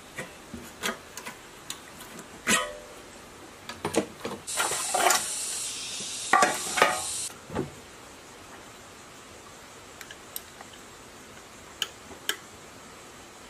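Small metal parts of a petrol generator engine clinking and tapping as it is taken apart by hand. In the middle comes a busier stretch of a few seconds of hissy rattling with several loud clatters while a plastic parts tray is handled, and a few sparse clicks follow near the end.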